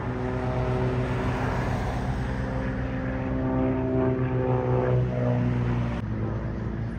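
Single-engine propeller aerobatic plane's piston engine droning, its note shifting slightly in pitch as it flies display manoeuvres. The sound drops suddenly in level about six seconds in.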